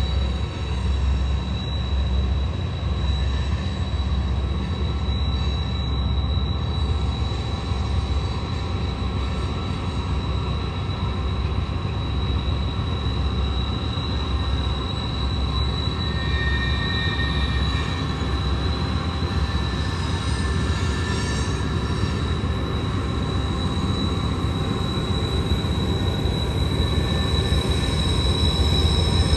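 Train rolling past on a sharp curve: a steady low rumble with a thin, high, steady wheel squeal from the flanges grinding against the rail, growing a little louder near the end.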